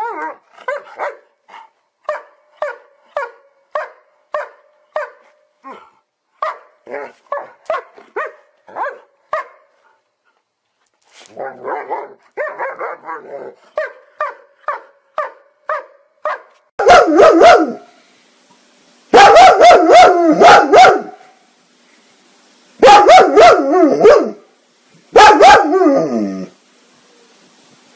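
German Shepherd barking in quick, short barks, about two a second, with a brief pause about ten seconds in. From about seventeen seconds in, a German Shepherd gives four much louder, longer drawn-out calls of a second or two each.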